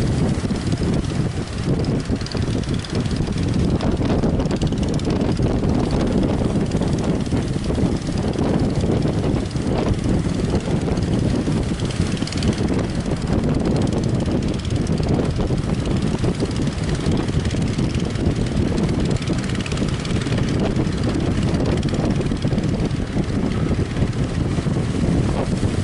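Strong wind buffeting the microphone: a loud, steady low rumble, with sea noise beneath it.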